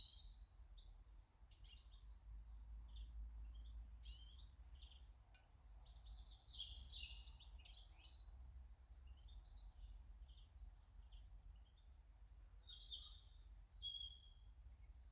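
Small garden birds chirping and calling, faint, in many short overlapping chirps and brief trills, with a louder flurry about seven seconds in and another near the end.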